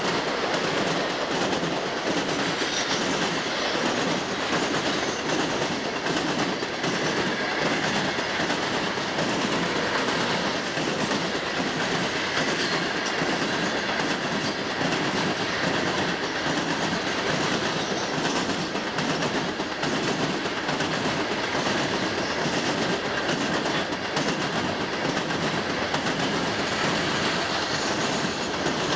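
Florida East Coast Railway freight train of hopper cars rolling past close by: a steady, unbroken noise of steel wheels running on the rails.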